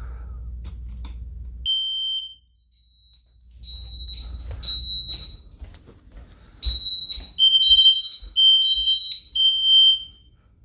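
Smoke detector on a Honeywell home alarm system set off for a test, sounding shrill electronic alarm beeps. They start about two seconds in and come in stop-start groups, and toward the end two slightly different pitches alternate.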